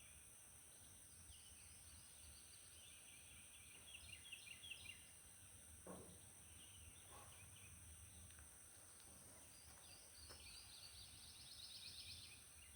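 Near silence: faint outdoor ambience with small birds chirping now and then, a short trill near the end, and a couple of faint knocks about six and seven seconds in.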